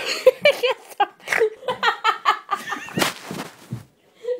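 A woman laughing uncontrollably in a long run of quick, high-pitched bursts, which tails off near the end.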